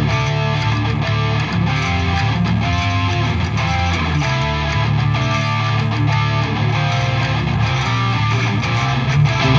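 Drumless progressive metal backing track at 95 beats per minute: electric guitars playing a steady riff, with the drum part removed.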